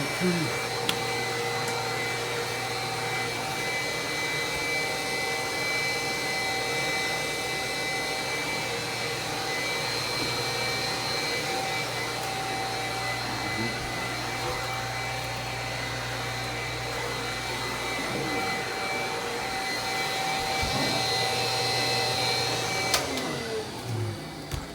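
Old vacuum cleaner's electric motor running steadily with a whine. It is switched off with a click near the end and spins down.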